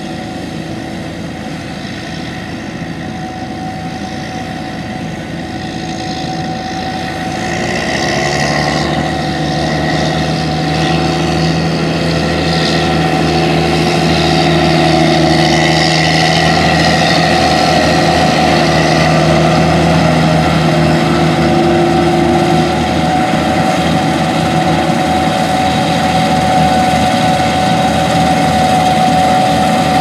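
Diesel engines of a Gleaner S78 combine harvesting wheat and a Challenger MT755C track tractor pulling a grain cart alongside it, running steadily under load; the sound grows louder about eight seconds in as the machines come closer.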